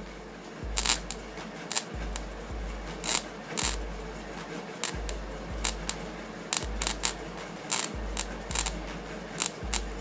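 Homemade welder made from a microwave-oven transformer arcing: the welding rod strikes and sparks in irregular sharp crackles and pops, more than a dozen of them.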